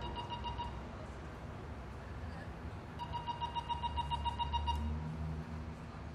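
Low, steady engine rumble with a rapid high beeping over it, about eight beeps a second. The beeping comes briefly at the start and again for nearly two seconds from about three seconds in.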